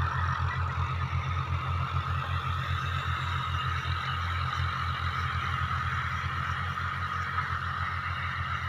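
Fiat tractor's diesel engine running steadily under load as it pulls a tillage implement across a field, with an even low throb.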